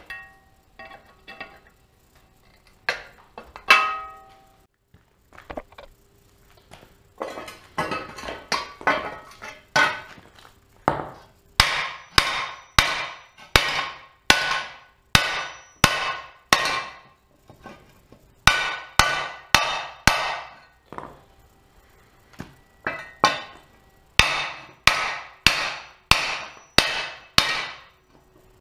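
Hammer blows on a Suzuki LT-Z400's aluminum skid plate laid over a small anvil, straightening the bent plate: a long series of sharp, ringing metal strikes about two a second, with a few short pauses. A few lighter metallic clinks come first.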